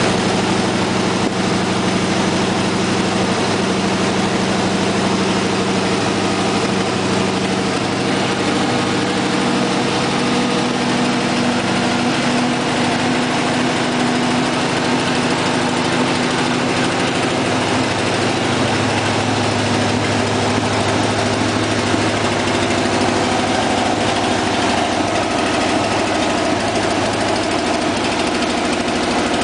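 Cadillac 425 cubic-inch V8 engine idling steadily, its speed shifting slightly a couple of times.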